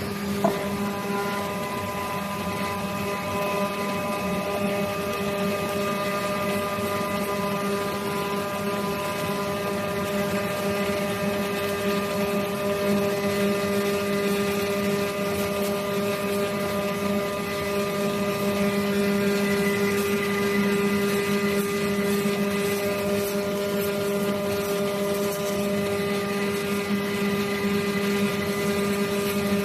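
CNC cutting machine with a pneumatic oscillating knife running. It gives a steady hum at a constant pitch, with a sharp click about half a second in.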